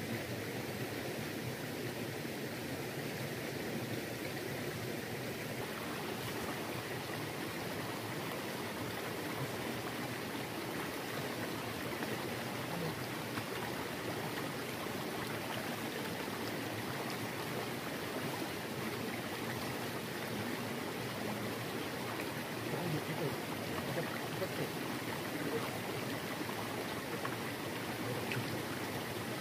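River water flowing, a steady even rush with no breaks.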